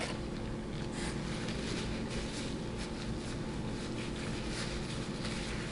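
Faint rubbing and crinkling of a paper napkin as greasy fingers are wiped, over a steady low hum.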